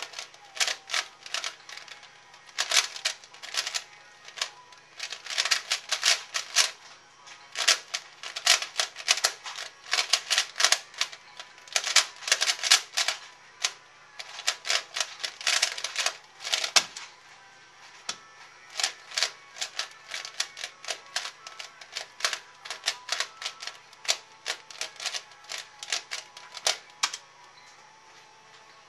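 Fast clicking and clacking of a C4U 3x3x3 speedcube with Cubesmith stickers being turned at speed, in quick runs of turns broken by short pauses. A single dull knock comes about 17 seconds in as the solve ends, and after a brief lull the rapid turning starts again.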